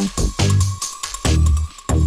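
Electronic background music with a fast, heavy bass beat.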